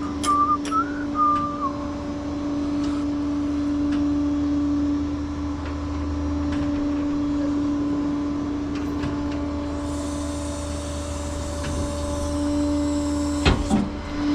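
Truck engine idling with a steady hum, a short warbling electronic beep in the first couple of seconds, and a single clunk near the end.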